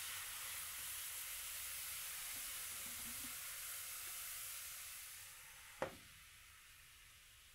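Water poured into a hot nonstick frying pan around a chicken breast, hissing and sizzling loudly as it turns to steam, easing off after about five seconds. A glass lid is set down on the pan with a single clink near the end, leaving a quieter sizzle.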